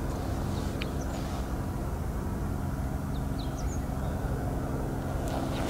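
A steady low engine drone from a motor running somewhere, with a few faint short bird chirps over it. At the very end a 9-iron strikes the golf ball with one sharp impact.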